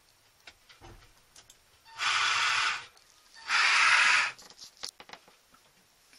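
An autopilot's electric linear actuator motor running in two short bursts, each just under a second long and about half a second apart, as the engaged autopilot drives the ram to hold its course.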